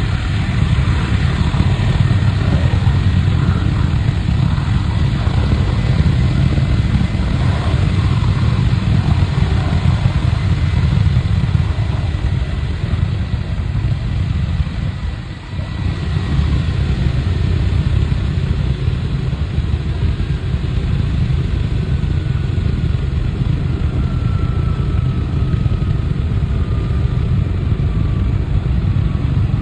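Jet truck's jet engine running with a steady, loud, low roar that dips briefly about halfway through, with a faint whine falling in pitch near the end.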